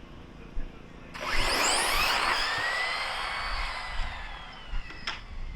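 RC drag car launching down the strip: a sudden high motor whine about a second in that sweeps up in pitch, then drops and fades as the car runs away over about three seconds. A sharp click near the end.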